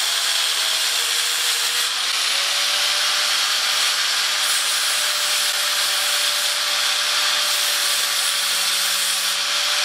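Handheld angle grinder running steadily with its wheel against metal, grinding off the peened, mushroomed end of a footpeg pivot pin so the pin can be driven out. A steady motor whine runs under the grinding noise.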